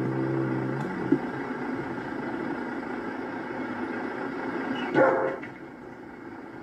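German Shepherd giving one short bark about five seconds in, over the steady running noise of the vehicle it has just boarded.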